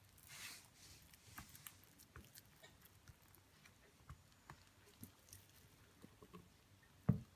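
Faint sticky scraping and squelching of thick, lumpy cold-process soap batter being pressed and smoothed into a silicone loaf mould with a silicone spatula. The batter has seized from accelerated trace after over-blending. A single low thump comes near the end.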